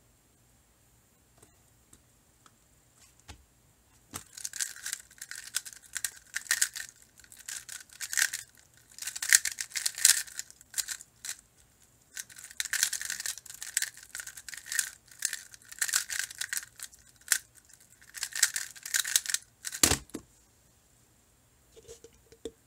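A Square-1 puzzle's plastic layers clacking and rattling as it is turned quickly in bursts of moves with short pauses between them, starting a few seconds in; near the end a single thump.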